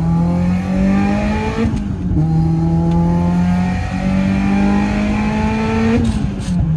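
Subaru WRX's turbocharged FA20 flat-four accelerating hard through the gears: the engine note climbs steadily, drops at a gear change about two seconds in, climbs again and drops at another shift near the end. The engine pulls cleanly, its cylinder 4 misfire cured by a new direct injector.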